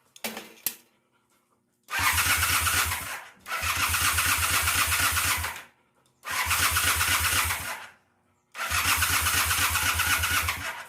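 Electric starter cranking a Honda CB400T's parallel-twin engine in four separate bursts with a fast, even chug, the engine not catching between them. A short clatter comes about a second before the first burst.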